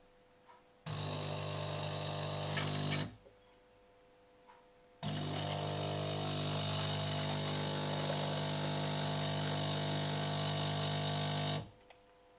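De'Longhi Eletta Explore bean-to-cup coffee machine running: a steady mechanical hum starts about a second in and lasts about two seconds, then after a short pause runs again for about six and a half seconds and stops sharply.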